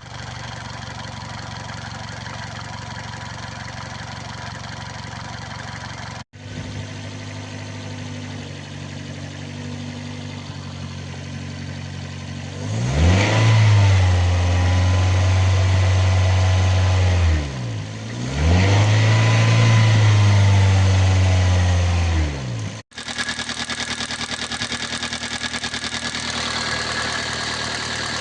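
A 2004 Toyota Avensis T25's 1.8 litre petrol engine running steadily, then revved twice, each rev held for about four seconds before dropping back. It carries an unexplained noise that mechanics have put down variously to the timing chain tensioner, clutch release bearing, belt tensioner or water pump.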